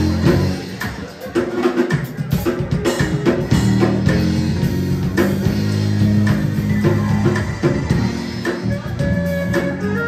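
A live R&B band plays a steady groove on drum kit and electric bass guitar, with stage piano and saxophone.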